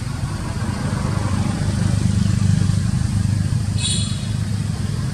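Steady low rumble of an engine running, swelling slightly after about a second, with a short high chirp about four seconds in.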